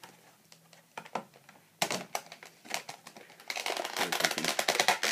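Packaging crinkling and crackling as it is handled: a few scattered crackles in the first half, then dense, continuous crinkling from about three and a half seconds in.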